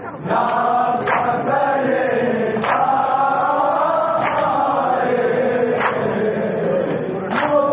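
Men chanting a Muharram nauha (lament) in unison, with a loud group chest-beating slap (matam) about every second and a half, five strikes in all.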